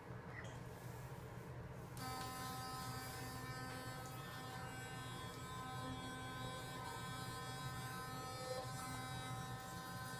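Small battery-powered children's toothbrush switched on about two seconds in, then buzzing steadily while it brushes.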